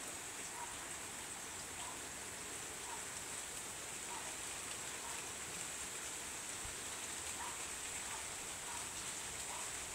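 Steady rain falling, an even hiss, with faint single drops ticking about once a second.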